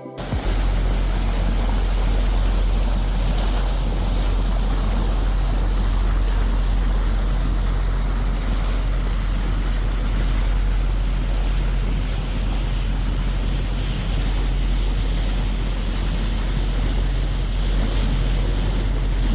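Yacht under way at sea: wind buffeting the microphone over a steady rush of water and waves, with a constant low rumble beneath.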